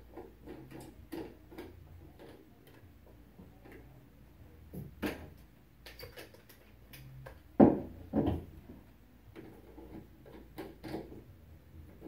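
Plastic clicks and rattles from handling a camera and a tripod's pan head, with two louder knocks a little past halfway.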